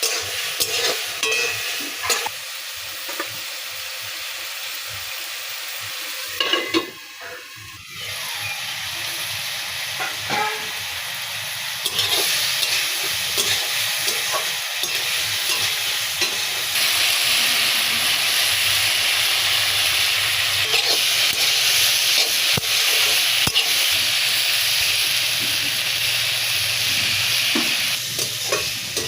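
Food frying and sizzling in a pan while being stirred, with scattered scrapes and clicks of the stirring utensil. There is a short lull about seven seconds in, and the sizzle grows louder from about halfway through before easing near the end.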